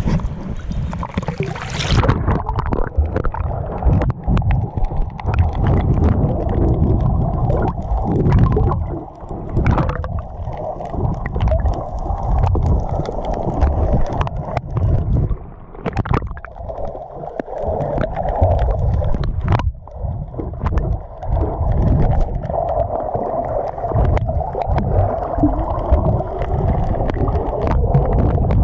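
Muffled underwater sound from a camera held below the surface: a low rumble of moving water with scattered clicks and knocks. About two seconds in, the surface hiss gives way to this dull, muffled sound as the camera goes under.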